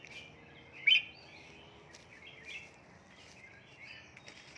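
Red-whiskered bulbuls chirping, short calls repeating throughout. One sharp, much louder call comes about a second in.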